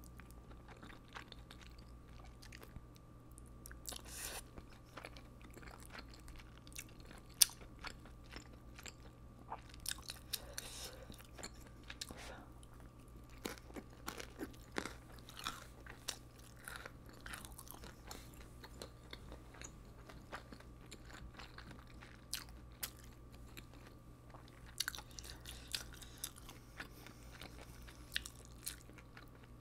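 Close-miked eating sounds of a person chewing spicy rice cakes (tteokbokki) and noodles: wet mouth clicks, smacks and a few slurps, scattered irregularly, with one sharp click about seven seconds in. A faint steady hum lies underneath.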